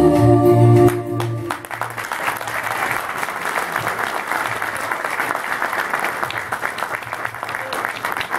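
The last held note and chord of a song end about a second in, then an audience applauds steadily.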